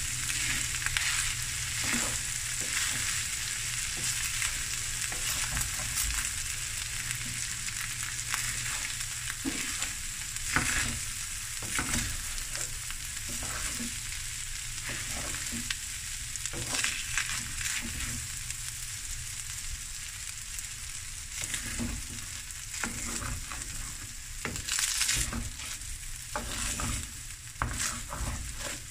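Fried rice with boerewors sausage, jalapeños and onion sizzling in a hot pan while a spatula tosses and scrapes it, with frequent irregular scrapes over a steady hiss.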